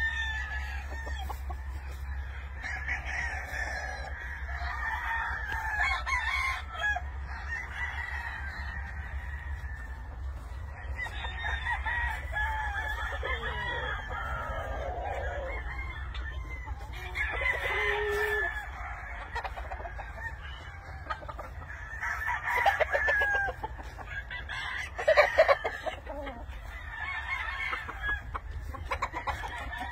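Many roosters crowing over and after one another, with clucking in between; several louder crows come past the middle and near the end.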